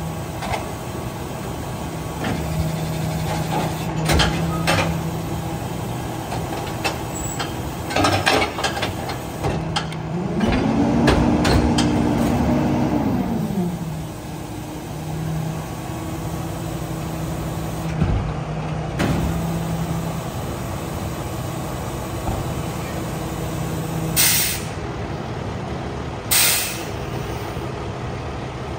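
Freightliner garbage truck with a New Way rear loader body idling, with metal clanks from the packer at the tailgate. About ten seconds in the engine speeds up and then settles back over a few seconds as the packer runs. Near the end come two short, sharp bursts of air hiss.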